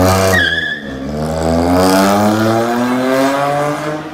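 Volkswagen Polo GT's engine and exhaust under hard acceleration: the engine note drops briefly about half a second in with a short high whistle, as on an upshift, then climbs steadily for about three seconds.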